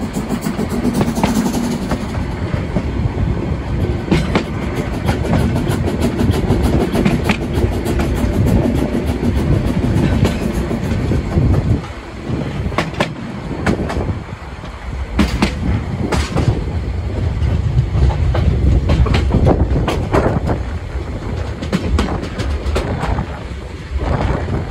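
Narrow-gauge steam train running along the track, with a steady rumble and repeated clacks of the wheels over rail joints. The loudness drops briefly twice around the middle.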